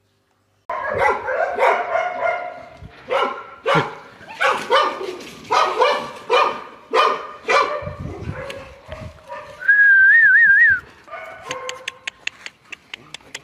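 Puppies yipping, short high yelps following one another quickly for several seconds. They thin out toward the end, and then a short warbling whistle sounds, followed by a patter of quick sharp clicks.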